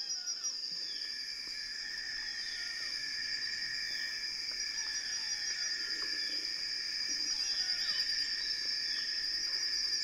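Steady forest insect chorus: a continuous high-pitched trill with softer lower trilling beneath it, and short descending chirps repeating about once a second.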